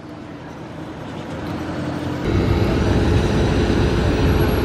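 Steady mechanical drone of an airport apron with aircraft and ground vehicles, slowly growing, then jumping louder about two seconds in with a steady low hum.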